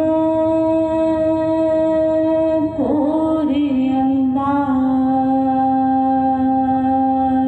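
A singing voice holds long sustained notes: one note for almost three seconds, then after a brief break it moves down to a slightly lower note that is held to the end.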